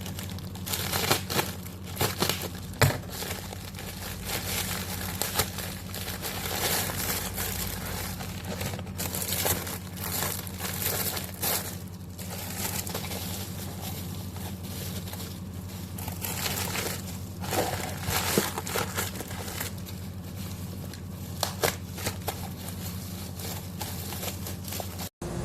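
Plastic packaging crinkling and rustling as it is handled, with irregular sharp clicks, over a steady low hum.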